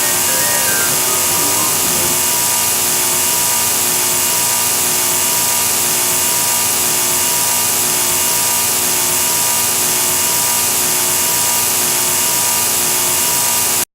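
Loud, steady, harsh hiss-like noise of glitched, distorted audio, strongest in the high range, with a few faint melodic notes fading out in the first two seconds; it cuts off suddenly near the end.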